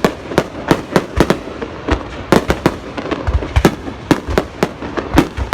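Fireworks exploding in a rapid, irregular volley of sharp bangs, several a second.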